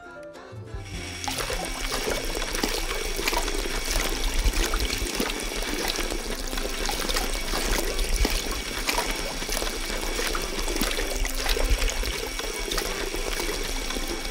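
Water from a Lego motor-driven water pump pouring steadily out of a plastic tube and splashing onto a Lego dump truck. It starts about a second in, just after the battery box is switched on.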